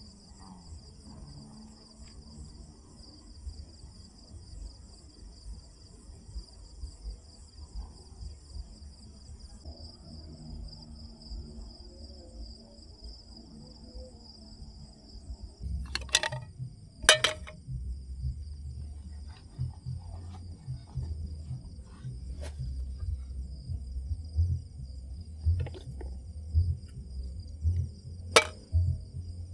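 A chorus of insects trilling steadily in two high bands, over a low rumble that grows louder about halfway through. A few sharp clicks or knocks come in the second half, two close together just past the middle.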